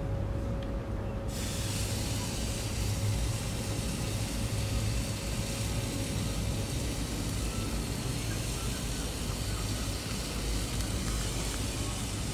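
Fillet steak skewers sizzling on a red-hot grill, the hiss starting suddenly about a second in as the meat goes down and then holding steady, over a steady low hum.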